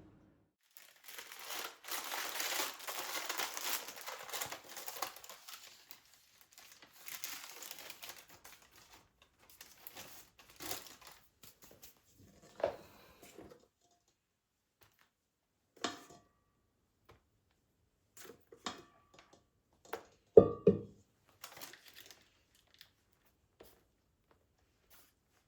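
Crinkly material rustling and crinkling as it is handled for several seconds, then a run of scattered light clicks and knocks, the loudest a pair of knocks about twenty seconds in.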